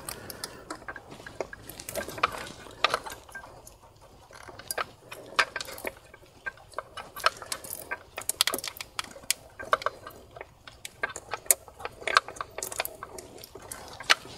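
Irregular small clicks, taps and rattles of plastic and metal parts being handled as hands work the intake manifold and its wiring connectors loose on a VW/Audi 2.0T TSI engine.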